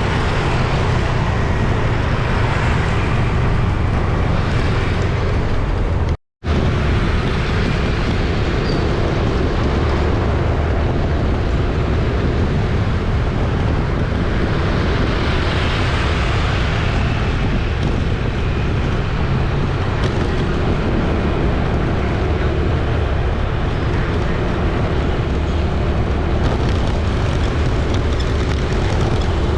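Busy city street traffic: a steady rumble of engines and tyres, with one vehicle passing louder around the middle. The sound cuts out completely for a split second about six seconds in.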